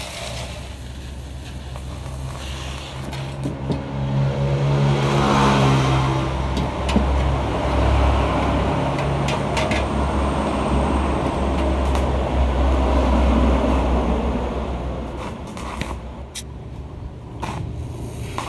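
Yamaha RX-King two-stroke single-cylinder engine revving through its gutted exhaust. The revs climb about four seconds in, hold high for about ten seconds, then drop back toward idle near the end.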